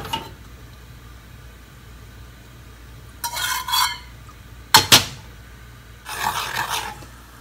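Metal spoon stirring sugar into water in an aluminium saucepan. It scrapes the pan in two short spells, with two sharp clinks of spoon on pan about two-thirds of the way through, over a low steady hum.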